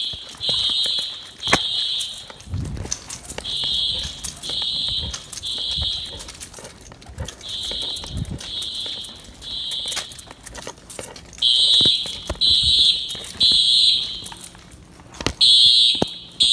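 Simplex fire alarm horns sounding the temporal-three evacuation pattern: groups of three high-pitched blasts of about half a second each, with a pause of about a second and a half between groups. The blasts get louder near the end.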